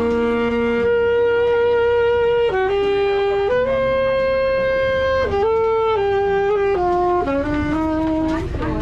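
Saxophone played live: a slow jazz melody of long held notes, each lasting one to two seconds, turning to a run of quicker notes near the end.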